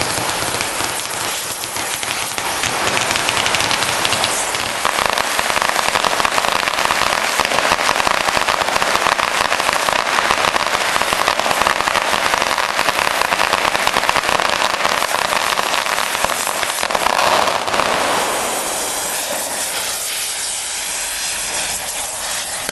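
A long string of firecrackers going off in dense, rapid crackling, which dies away about eighteen seconds in to a fainter steady hiss.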